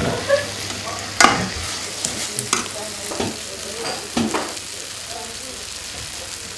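Chopped vegetables sizzling as they fry in a pan, with diced tomatoes being added and stirred in. A few sharp knocks break the steady hiss, the loudest about a second in.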